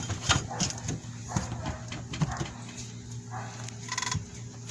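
Screwdriver levering against a brake caliper to push its piston back, giving scattered metallic clicks and scrapes, with a short high squeal about four seconds in.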